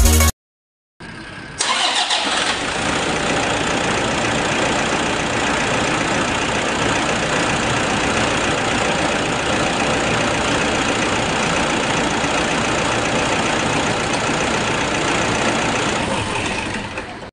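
A car engine catches about a second and a half in and keeps running at a steady level, then fades out near the end.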